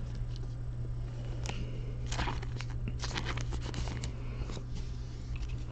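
Trading cards being handled and flipped through by hand: scattered crinkles, slides and light clicks, busiest between about two and four and a half seconds in, over a steady low hum.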